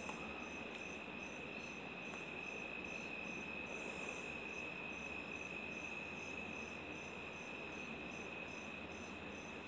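Insects chirping: a steady high-pitched trill with a second, higher chirp pulsing evenly about two or three times a second.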